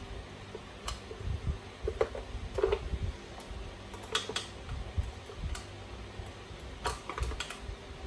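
Scattered light clicks and taps of a small hex key and hands working at screws on an RC truck's chassis, with dull handling bumps in between. There are about eight sharp clicks, spread unevenly.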